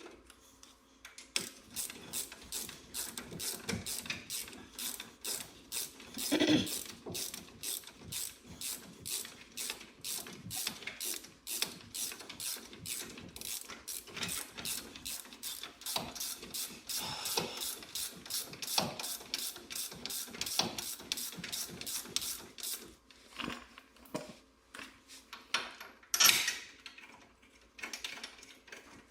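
Hand ratchet wrench clicking steadily, about three or four clicks a second, as bolts on a truck's front hub are turned. Two louder knocks come through, about six seconds in and near the end.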